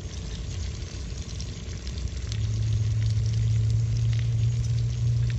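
Barramundi frying in garlic butter in a pan over a wood fire, sizzling with fine crackles. A steady low hum joins about two seconds in.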